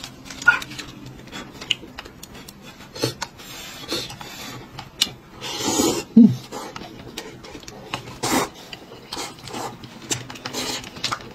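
Instant noodles being slurped from a paper cup in several separate noisy slurps, with small clicks of chopsticks.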